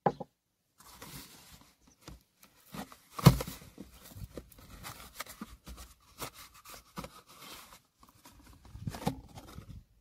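Cardboard epoxy-glue box being handled: rustling and scraping of the card, with short knocks and clicks as small bottles are taken out and set down on a workbench. The loudest is a single sharp knock about three seconds in.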